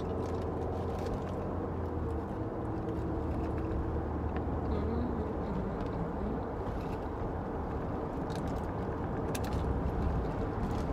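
Steady low engine and road rumble of a car being driven, heard from inside the cabin, with a few faint clicks.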